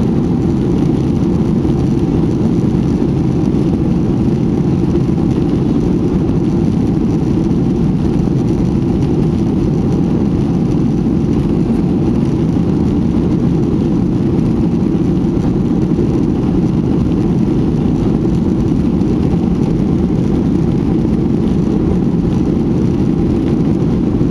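Steady cabin noise of a Boeing 737-800 on the ground: the even rumble of its CFM56-7B jet engines and the runway, heard from inside the cabin over the wing. It holds at a constant level with no rise or fall.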